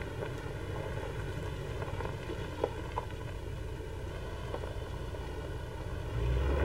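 Land Rover Discovery Series II engine running slowly as the vehicle creeps through a ditch, a steady low rumble with a couple of faint clicks a little over two and a half seconds in. The rumble grows louder near the end.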